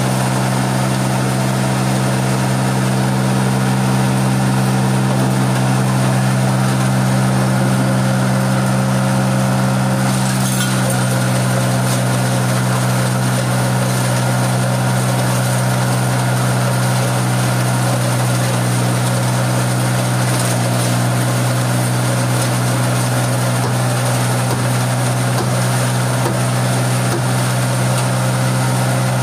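Small hammer-mill stone crusher driven by a three-phase electric motor, running steadily with a loud, even hum.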